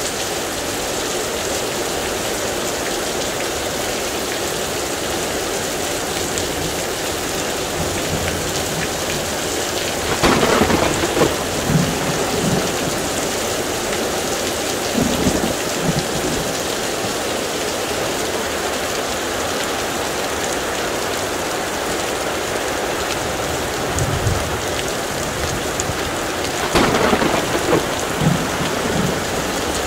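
Heavy rain falling steadily in a thunderstorm, with rumbles of thunder, the loudest about ten seconds in and again near the end.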